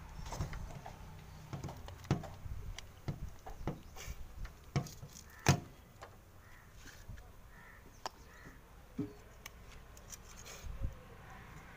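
Scattered light clicks and taps of an auto-rickshaw headlamp unit and its bulb holder being handled and pulled apart, with one sharper knock about halfway through.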